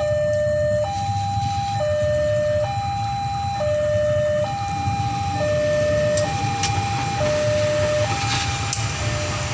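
Level-crossing warning alarm sounding a two-tone electronic chime, alternating low and high tones about once a second, over a steady low rumble; the alarm grows fainter near the end.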